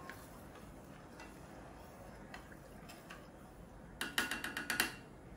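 A spoon stirring sugar syrup in a stainless steel saucepan, with faint scattered clinks against the pan. About four seconds in, a quick run of eight or so sharp clicks lasting under a second as the spoon knocks against the pan.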